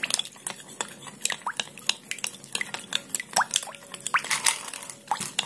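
A metal spoon stirring ice cubes through melted ghee in a glass bowl, with irregular clinks and knocks of ice and spoon against the glass several times a second. The ghee is being stirred over ice to cool it and set it into butter.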